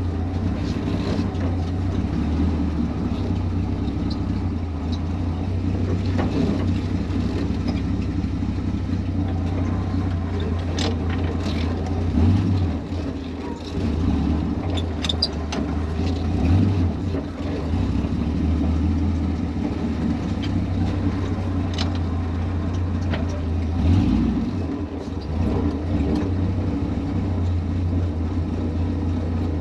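1929 Ford Model A hot rod shop truck's engine running steadily at low speed while the truck is maneuvered into place, swelling briefly a few times with small throttle blips.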